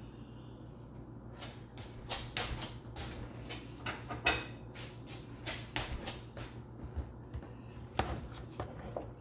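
Hands tossing and mixing dressed pasta salad in a bowl: irregular soft clicks, knocks and rustles, with sharper knocks about four and eight seconds in, over a steady low hum.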